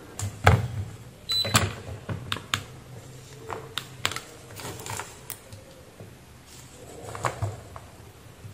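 Irregular sharp clicks and taps of a small plastic component, multimeter buttons and test probes being handled on a workbench, with a short high beep about a second and a half in.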